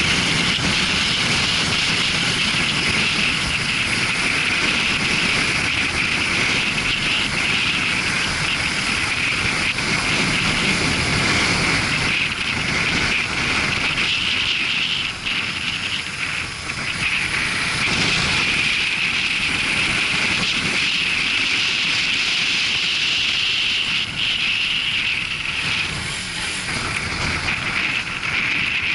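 Suzuki GW250 Inazuma motorcycle on the move: steady engine and road noise mixed with wind rushing over an action camera's microphone, easing off briefly a few times in the second half.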